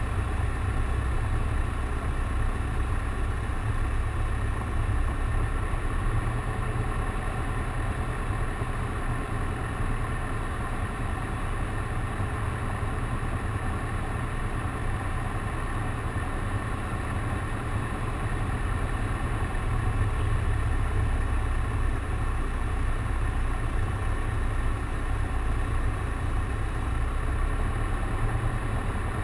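Grumman Tiger's four-cylinder Lycoming piston engine and propeller running steadily on a landing approach, a low, even drone with a constant buzz above it.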